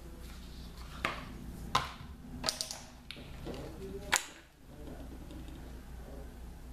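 A few sharp clicks and knocks of makeup packaging being handled, such as caps and cases, spread over the first four and a half seconds. After that only a steady low hum remains.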